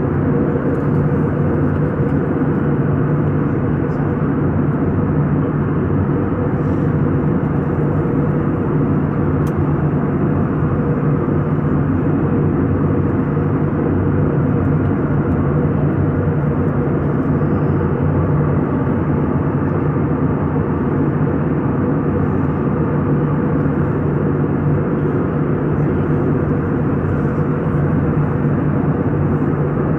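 Steady engine drone of an aircraft heard from inside the cabin, an even hum with constant pitch and loudness throughout, with no change in engine speed.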